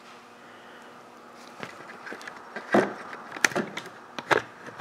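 Handling noise: a quiet first second and a half, then a string of sharp knocks and clicks with brief rattles as things are moved about.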